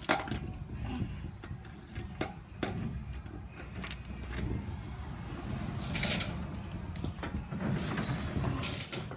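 Key clicking and turning in the lock of a corrugated metal roller garage door, then the door rattling as it is pulled up by its handle, loudest about six seconds in and again near the end.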